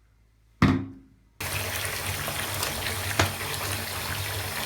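A single sharp knock, then about a second and a half in a tap comes on and water gushes out steadily.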